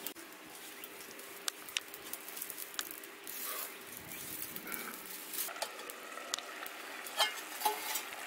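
Sparse crackling and rustling from a straw-and-twig fire in a clay chulha as dry straw is fed in under a lidded pan, with a faint steady hum underneath. A few sharper clicks come near the end.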